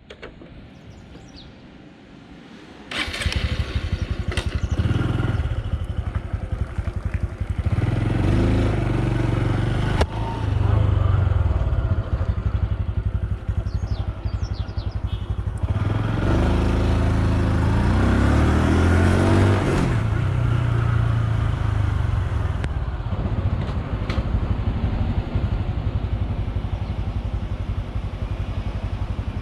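Honda Super Cub C125's single-cylinder four-stroke engine running as the bike is ridden, coming in abruptly about three seconds in. The revs rise and fall repeatedly as it accelerates through the gears.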